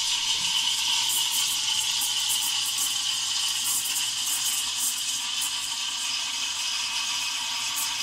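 Steam wand of an ECM Technika V Profi heat-exchanger espresso machine hissing steadily into a stainless pitcher, steaming milk. The hiss deepens slightly as it goes.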